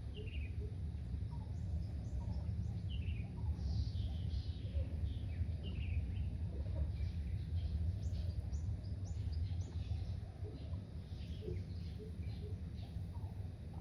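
Several birds chirping, many short downward-sliding calls repeating throughout, over a steady low rumble.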